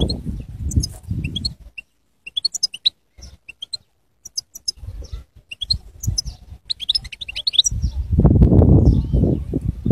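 European goldfinch singing: quick runs of high, twittering chirps. A low rumble of wind on the microphone, louder than the song, covers the first second or so and returns for the last two seconds.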